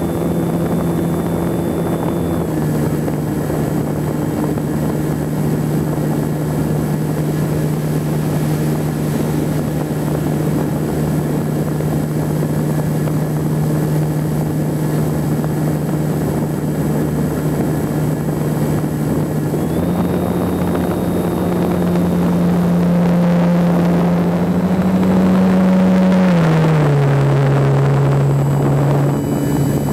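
Electric brushless motor and propeller of a GWS Slow Stick RC plane running steadily, heard from the onboard camera with a rush of air. The motor's pitch drops a step about two seconds in, rises twice past the twenty-second mark, then falls again near the end as the throttle is changed.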